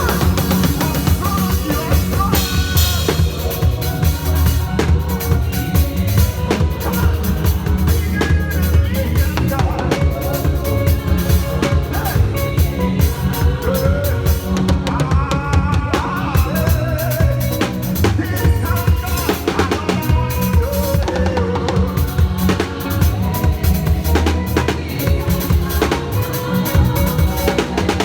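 Live drum kit playing a driving praise rhythm, with kick drum, snare and rimshots, over full band music.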